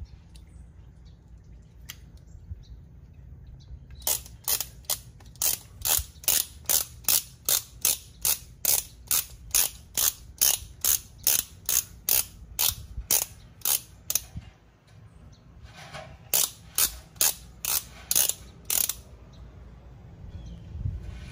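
Ratchet clicks from a click-type torque wrench being worked, sharp single clicks in a steady series of about two to three a second. They stop briefly about two-thirds of the way through, then a shorter run follows.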